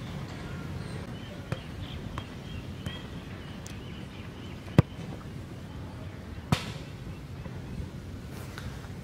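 A football being kicked: a few light touches of the ball, then one sharp, loud kick a little past halfway and a second, longer-ringing impact under two seconds after it.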